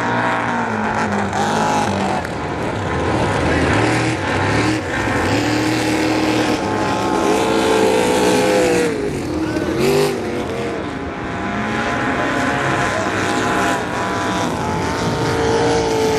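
Engines of several 4.2-litre racing powerboats running flat out, overlapping, their pitch rising and falling as the boats pass one after another.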